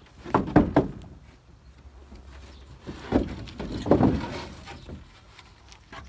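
Rough-sawn pine 2x6 boards knocking and scraping against each other as they are pulled from a stack in a pickup bed: three sharp knocks about half a second in, then a longer clatter and scrape around three to four and a half seconds in.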